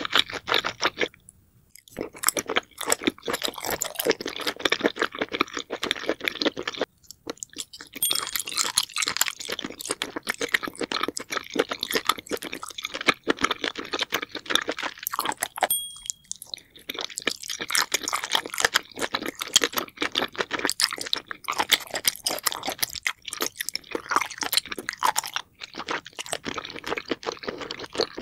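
A person chewing and crunching spicy seafood, octopus tentacles among it, played back sped up: a rapid stream of wet clicks and crunches with short pauses about one, seven and sixteen seconds in.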